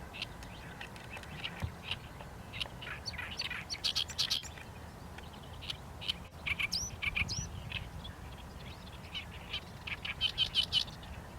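Small birds chirping: irregular clusters of short, high chirps, busiest about a third of the way in and again near the end.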